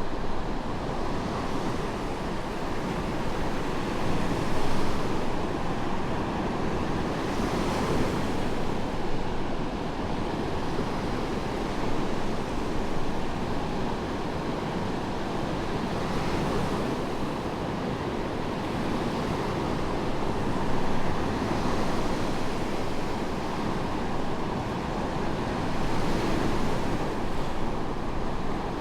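Medium waves breaking and washing up a sandy beach in a continuous surf, with a brighter crash every few seconds as each wave falls.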